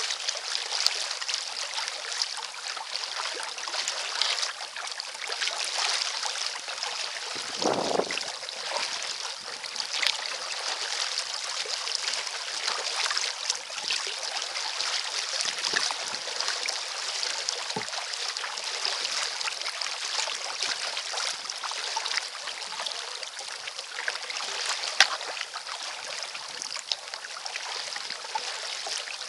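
Water lapping and trickling close against a moving kayak, a steady splashy hiss with scattered small drips and clicks. A brief low thump about eight seconds in.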